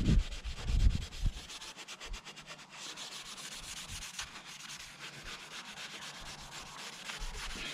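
The scouring side of a kitchen sponge scrubbing a rusty steel motorcycle exhaust header pipe in rapid back-and-forth strokes, working WD40-loosened surface rust off it. There are a few low knocks in the first second.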